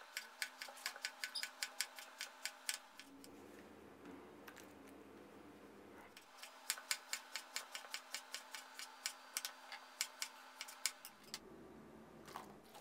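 Kitchen knife chopping long green eggplant on a bamboo cutting board: sharp knocks of the blade on the board, about four a second, in two runs with a pause of about three seconds between them.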